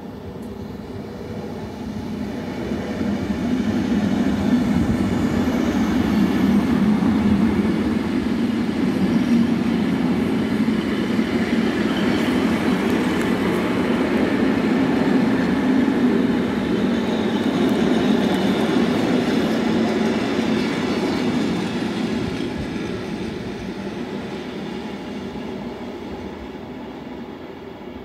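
Electric passenger train passing close by, its wheels and carriages rumbling over the track. The sound builds over the first few seconds, stays loud for most of the pass, then fades as the train moves off.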